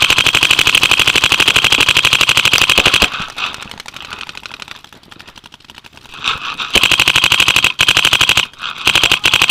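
Dye DM12 electronic paintball marker firing rapid strings of shots: one long burst of about three seconds, a lull with fainter scattered shots, then two more bursts near the end.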